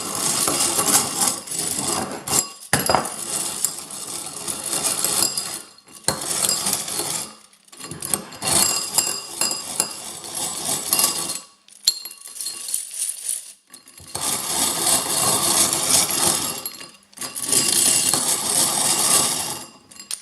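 A wire hand whisk rattling and clinking fast against a bowl with a USB cable inside, in about seven bouts of whisking split by short pauses.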